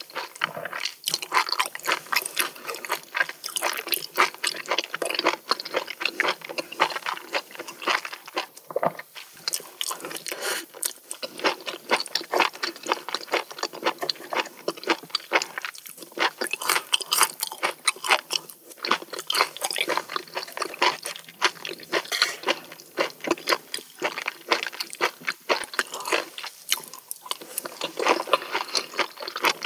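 A person chewing food close to the microphone: a steady stream of small wet clicks and crackles from the mouth.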